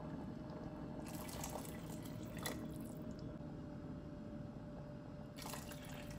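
A glass of water poured into a pot of red lentil soup, the water splashing into the soup near the end.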